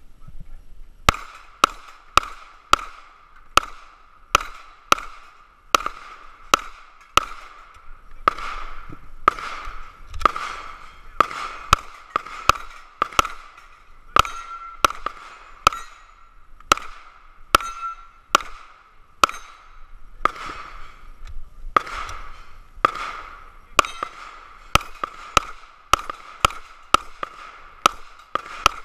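Pistol fired in a fast string of about forty shots at steel plate targets, starting about a second in, with a brief gap a little past two-thirds of the way. Each hit is followed by the short ring of the struck steel plate.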